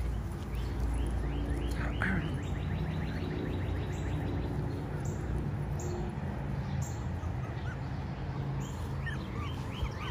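Songbirds chirping, with a fast trill of evenly repeated high notes for a couple of seconds and another run near the end, over a steady low hum.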